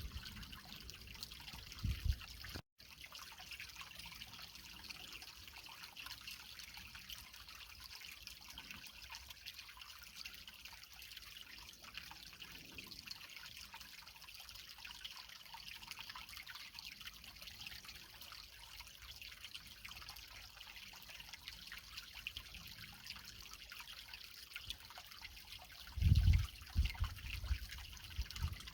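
Creek water trickling over rocks: a steady, even splashing hiss. The sound drops out briefly about three seconds in, and low rumbles break in over the first couple of seconds and again over the last few seconds.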